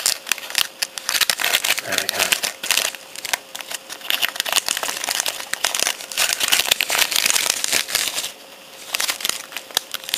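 Shiny plastic wrapper of a chocolate wafer packet crinkling as it is gripped, squeezed and turned over in the hand, with a short pause near the end.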